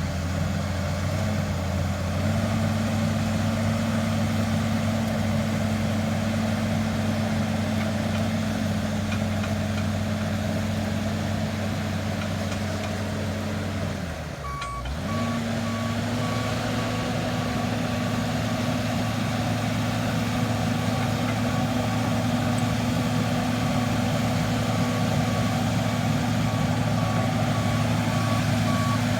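Bulldozer's diesel engine running steadily under work. About halfway the engine briefly dips and recovers, then a reversing alarm beeps evenly and repeatedly: the dozer is backing up.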